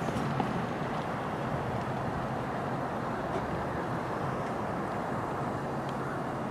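Steady outdoor background rumble, such as distant road traffic, with a faint low hum.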